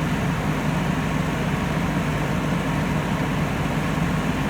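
Diesel engine of a JCB backhoe loader running steadily with an even low hum.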